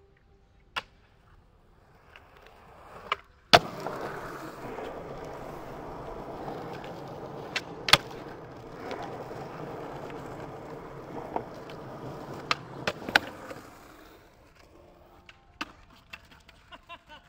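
Skateboard wheels rolling over pavement. The rumble swells in, jumps up with a sharp clack about three and a half seconds in, and runs steadily with several more sharp clacks before fading away near the end.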